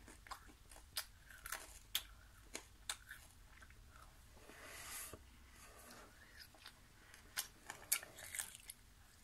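A child chewing candy: faint, irregular crunches and mouth clicks close to the microphone.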